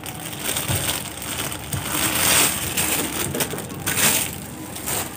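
Thin clear plastic wrapping crinkling and crackling as it is pulled off a silicone spatula, in an uneven run of rustles with louder crackles about halfway and about four seconds in.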